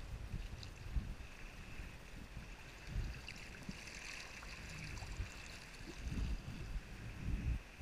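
Water splashing and lapping against a sea kayak's hull and paddle as it is paddled through choppy water, with irregular low gusts of wind on the microphone.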